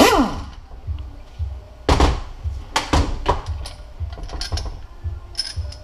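Metal clanks and knocks of hand tools and loosened bolts on a MazdaSpeed 6 transfer case on a workbench. A ringing clang comes at the start, then a few sharp knocks about two and three seconds in and lighter clicks near the end.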